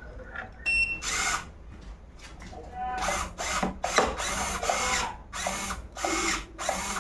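Small electric motor whirring in short repeated bursts, about two a second, its pitch rising and falling within each burst, after a brief louder sound with a steady high tone about a second in.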